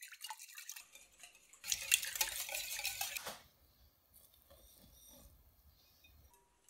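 A wire whisk beating eggs in a glass bowl, its wires clinking and scraping rapidly against the glass, loudest for about a second and a half in the middle. The whisking stops and rice flour is poured onto the eggs with a soft rustle.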